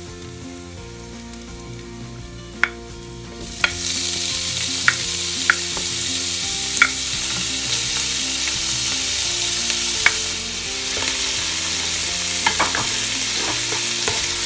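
Garlic frying softly in hot oil, then diced bacon tipped into the pot about three and a half seconds in, so the sizzle jumps suddenly much louder and holds. The bacon is stirred with a spoon that clicks and scrapes against the pot now and then.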